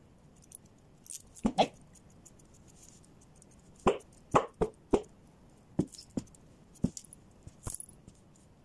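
Grooming scissors snipping through a dog's thick coat: about ten sharp metallic snips at an irregular pace, some in quick pairs.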